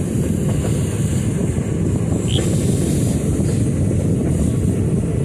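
A passenger train running along the track: a steady low rumble of coach wheels on the rails, mixed with rushing wind on the microphone, as heard from an open coach door. There is one brief high squeak about two seconds in.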